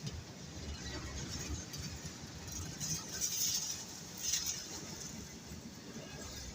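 WDG3A ALCO diesel locomotive's 16-cylinder engine running with a steady low rumble as it works a goods train, with brief high-pitched bursts a few times, twice in the middle.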